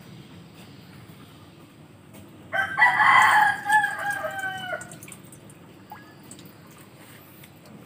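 A rooster crowing once, starting about two and a half seconds in and lasting a little over two seconds, its pitch falling at the end.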